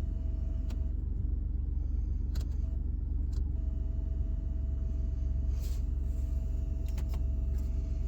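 Steady low rumble in the cab of a 2019 Ford F-150, with a thin electrical hum tone above it that cuts out about a second in and returns a few seconds later. The hum comes on with the lights and is blamed on LasFit LED bulbs. A few faint clicks are also heard.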